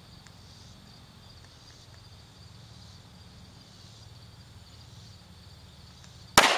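Steady faint chirring of insects, then near the end a single sharp, loud shot from a .45 ACP DoubleTap pocket pistol that rings off briefly.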